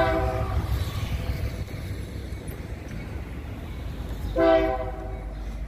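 Air horn of a GE AC44i diesel freight locomotive sounding two short blasts, one at the start and a louder one about four and a half seconds in, over a steady low rumble.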